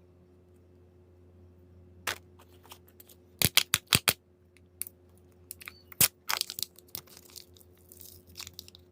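A Kinder Surprise egg being opened by hand. There are sharp clicks and snaps, five in quick succession about three and a half seconds in and a loud one about six seconds in, then crinkling and tearing of the wrapping.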